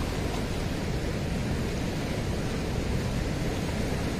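Steady rushing noise of a fast-flowing, flooded river mixed with wind buffeting the microphone.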